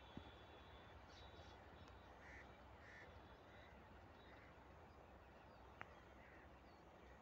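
Near silence with a few faint bird calls, plus a small click just after the start and another near the end.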